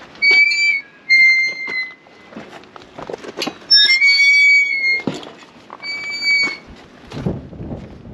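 Rusty iron field gate squealing as it is pushed open and swings, four high-pitched squeaks of about half a second to a second each, with metal clicks and knocks between them.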